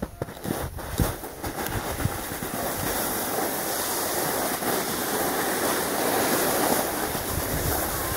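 Snowboard sliding down groomed snow: a few knocks as it gets going, then from about two seconds in a steady scraping rush of the board on the snow.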